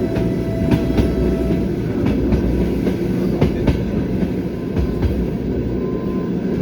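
Passenger train's wheels clattering over the rail joints under a steady running rumble, heard from aboard the moving train. The sharp clicks come in pairs about a third of a second apart.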